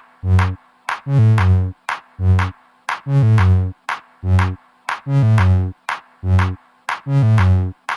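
Electronic dance music: a drum-machine beat with short, punchy synth bass notes in a pattern that repeats about every two seconds.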